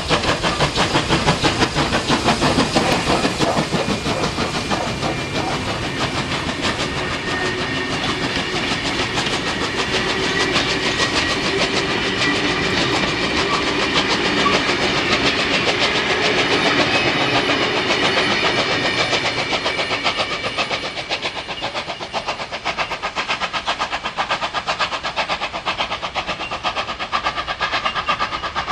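Steam locomotive working under steam, its exhaust beating in a fast, even rhythm that eases off somewhat near the end.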